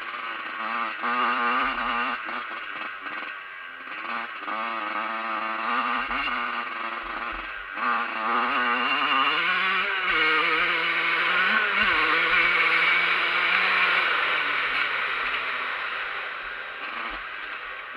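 Dirt bike engine revving up and down under way. The revs climb about eight to ten seconds in, hold high for a few seconds, then fall away towards the end.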